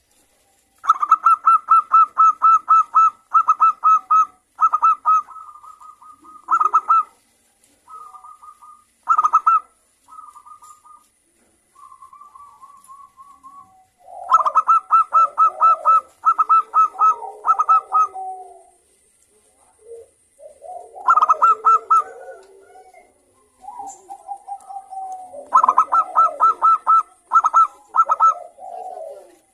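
Zebra doves (perkutut) singing: phrases of rapid, clipped cooing notes in repeated groups, starting about a second in. From about halfway, lower rolling coos overlap the phrases.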